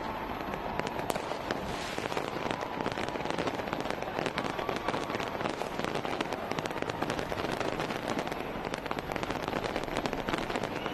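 Fireworks crackling continuously: a dense stream of many small, sharp pops overlapping one another.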